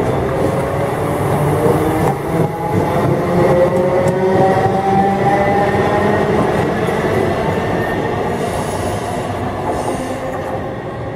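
ScotRail electric multiple unit pulling away, its traction motors whining in a rising pitch over the rumble of wheels on rail. The sound fades slowly over the last few seconds as the train draws off.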